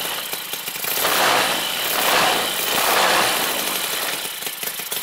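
Cison FG-9VT miniature four-stroke V-twin Panhead model engine running and being revved by hand at the throttle, rising three times about a second apart, then easing back toward idle near the end.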